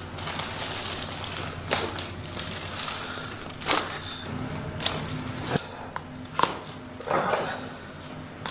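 Joint cracks during a chiropractic adjustment: five or so sharp pops spread over several seconds, the loudest about four seconds in and again about six seconds in, followed by a short rustle of body and clothing on the table. A steady low hum runs underneath.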